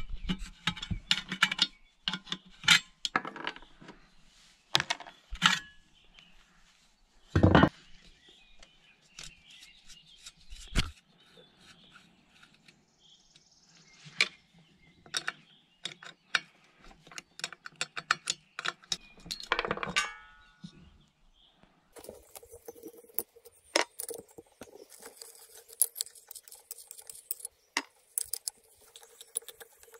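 Irregular metallic clicks, clinks and knocks of a combination wrench and loose metal parts as an old small two-stroke engine is dismantled by hand, with a few louder knocks. A faint steady hum comes in for the last several seconds.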